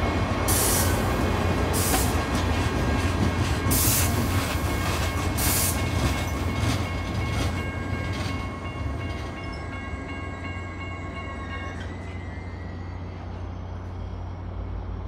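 Caltrain bilevel commuter train rolling slowly to a stop. Its brakes give a steady high squeal of several tones that cuts off about twelve seconds in, as the train halts. Short bursts of hiss come over the first several seconds, and a low steady hum runs underneath.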